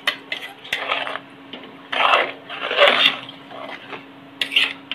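Steel spoon tapping and scraping ground coconut masala paste out of a mixer jar into a clay pot of chicken curry, then stirring the thick curry. There are sharp clinks of spoon on the vessels, and three louder wet scraping stirring strokes in the middle.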